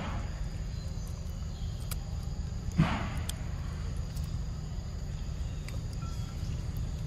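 Steady insect drone over a low rumble, with faint clicks of a macaque chewing ripe mango close by and one short, louder noise just under three seconds in.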